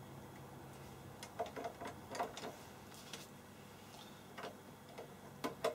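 Scattered small, irregular clicks of a cartridge fuse and its plastic fuse holder being fitted back into the Fluke 8842A's front-panel 2 A current socket, the holder pushed in and twisted home; the loudest clicks come near the end.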